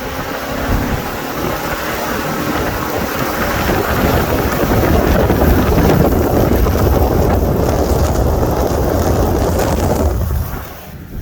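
Strong storm wind buffeting the microphone: a loud rushing and rumbling that builds over the first few seconds and eases near the end.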